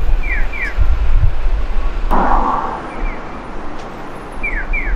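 Street ambience with a steady low traffic rumble. Twice, a pair of short falling chirps rises above it, and about two seconds in there is a brief hiss.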